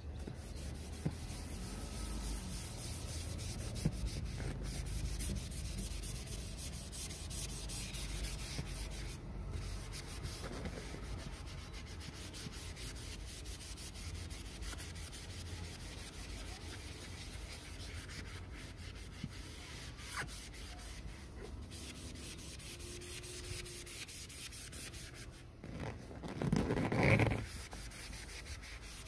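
Magic Eraser melamine foam sponge scrubbing a textured vinyl seat cushion, a steady rubbing sound with one short louder sound near the end.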